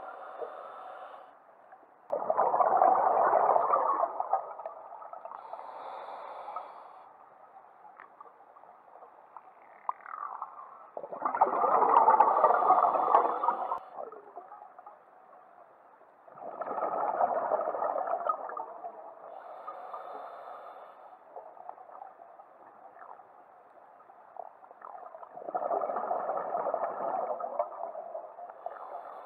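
Scuba diver breathing through a regulator. A quieter hiss on each inhale alternates with a long, loud burble of exhaled bubbles, four exhalations of two to three seconds each.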